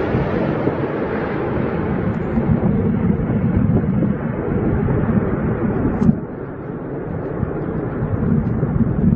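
Jet airliner engines heard passing by and receding, the high hiss slowly dulling, mixed with strong gusty wind buffeting the microphone.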